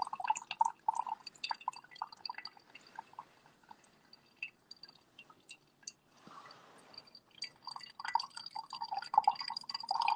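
Coffee dripping in small irregular drops from a slow coffee brewer into the liquid below. The drops come quickly at first, thin out in the middle and pick up again near the end, with a brief soft hiss about six seconds in.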